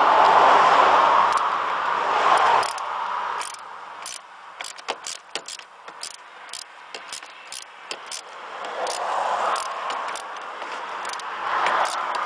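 A loud steady rushing noise with a low hum beneath it cuts off abruptly about two and a half seconds in. It is followed by scattered small metallic clicks and rattles of hand tools and parts being handled under a truck's hood.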